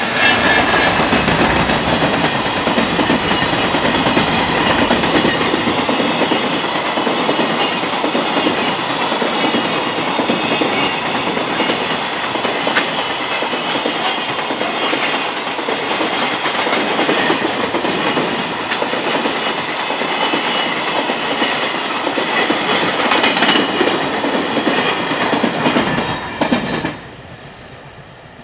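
Freight train passing, its wagons' wheels clattering over the rail joints in a loud steady rumble that falls away sharply about 27 seconds in.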